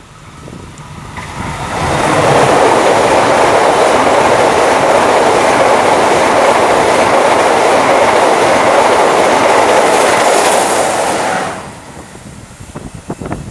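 Passenger train of stainless-steel coaches passing at close range: the rush of wheels on rail swells as it nears, holds loud and steady for about ten seconds, then stops abruptly.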